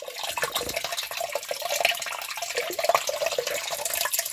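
Rainwater streaming in through a small hole in the side of a sump pit basin and splashing into the water pooled in the pit, a steady trickling splash. The runoff from heavy rain is forcing its way into the pit.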